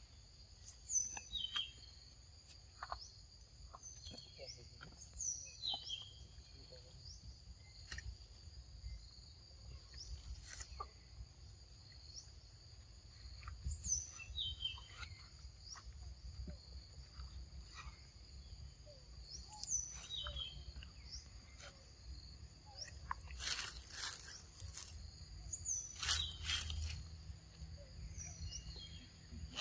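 Forest ambience: a steady high-pitched insect drone with a bird repeating a short falling call every few seconds, over a low rumble of wind. A few brief loud rustling or crunching noises come near the end.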